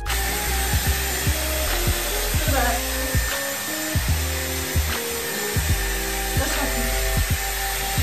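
Dyson hot-air styler blowing steadily, a dense rushing hiss with a high motor whine, under background music with a steady beat.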